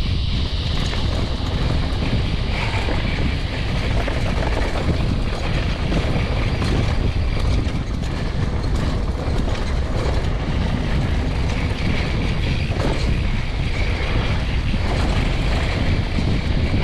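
Mountain bike descending a dirt trail at speed: steady wind noise on the microphone, with the tyres rolling over dirt and many short knocks and rattles from the bike over bumps.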